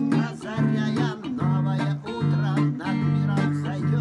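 Ibanez electric guitar played solo: held low notes under a picked melody, with some notes bent up and down in pitch.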